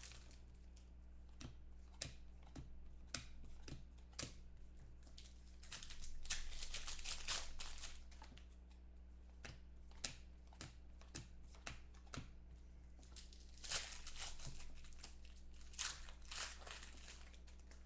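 Clear plastic wrapper and a foil trading-card pack crinkling and tearing in the hands as the pack is opened, with scattered sharp crackles and longer rustles about six seconds in and again near fourteen seconds.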